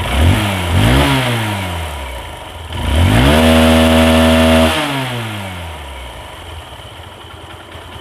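Hero Hunk's single-cylinder engine is blipped twice, then revved and held high for a second or two before dropping back to a steady idle. It is running well again after a cylinder-head and valve overhaul, and the engine sound is described as good.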